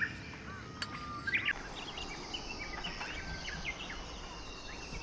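Birds calling with many short chirps and whistles, over a steady high hiss.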